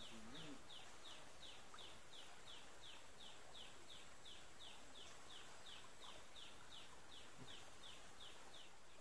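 A high, thin call repeated steadily about three times a second, each note dropping slightly in pitch, stopping shortly before the end.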